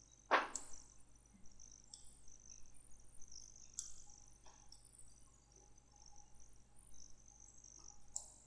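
Faint, high-pitched chirring of crickets or other insects in the background, coming and going. There is a short whoosh about half a second in and a few soft clicks, probably from the mouse as camera values are changed.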